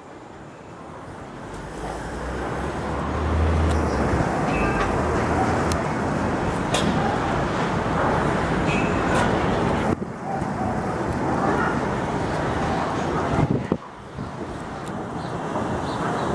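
Strong storm wind roaring and buffeting the microphone, building over the first few seconds and then holding steady, with a few sharp knocks and rattles.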